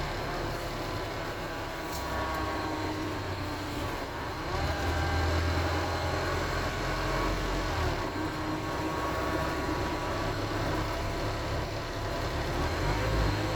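Wright StreetDeck double-decker bus heard from inside while it drives, its Mercedes-Benz OM934 four-cylinder diesel engine and driveline running with a groaning noise. Several whining tones drift slowly in pitch over a low drone, which grows louder about four and a half seconds in and again near the end.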